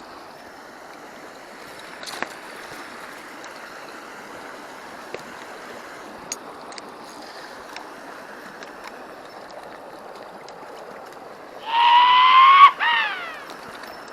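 Steady rushing of a stream, then near the end a loud buzzing whine for about two seconds, rising slightly in pitch, followed by a brief falling whine: a fly reel's click drag as a hooked trout pulls line off the reel.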